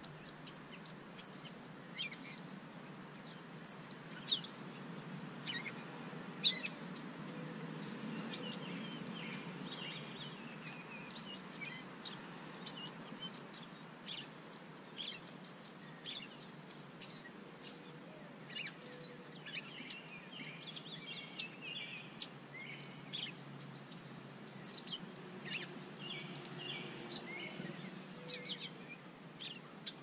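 Small songbirds calling around a seed feeder: many short, high chirps and chip notes scattered throughout, over a low, steady background noise.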